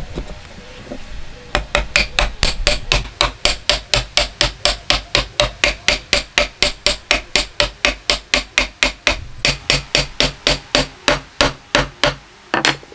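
Wooden mallet tapping a mitred wooden corner joint home. A fast, even run of knocks, about four a second, starts about a second and a half in and goes on for about ten seconds, followed by one last separate knock near the end.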